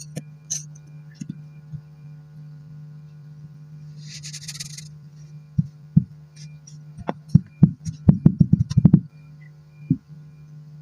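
Kinetic sand being cut and handled: a short gritty crunch about four seconds in, then a run of sharp taps and thuds that comes fastest near the end, over a steady low hum.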